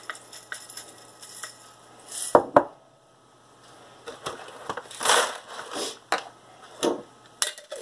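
Dry dehydrated mixed vegetables scooped from a glass jar with a plastic measuring cup, clicking and scraping against the glass with two sharp knocks, then poured into a Mylar bag in a short rustling rush about five seconds in, followed by a few light clicks.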